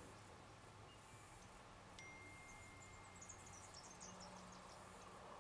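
Near silence: faint open-air background with a few faint, short high chirps in the middle and a thin steady whistle starting about two seconds in.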